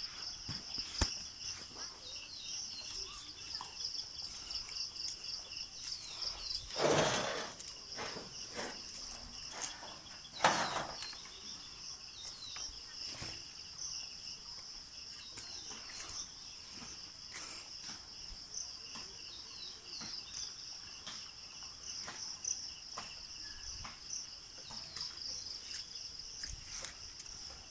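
A steady, high-pitched chorus of insects such as crickets, trilling without pause, interrupted twice by brief, loud noisy bursts about seven and ten seconds in.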